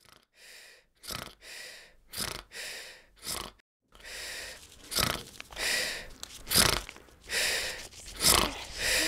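A sleeping person's loud, heavy breathing: a run of drawn-out breaths in and out, some ending in snorts. It grows louder about four seconds in.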